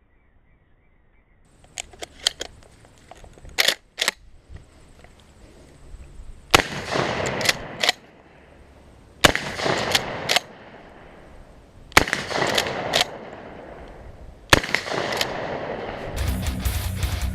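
Adler A110 lever-action 12 gauge shotgun fired four times, roughly every two and a half to three seconds, each shot ringing out briefly. Sharp metallic clicks of the lever being worked fall between the shots and before the first. Guitar music comes in near the end.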